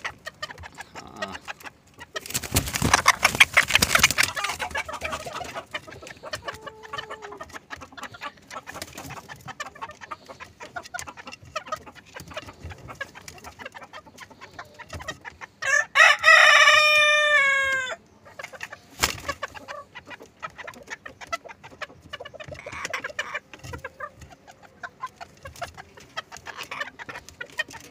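Serama bantam chickens clucking softly, with a loud rustling burst a few seconds in. About halfway through, the serama rooster crows once, a call of about two seconds that slides slightly down in pitch.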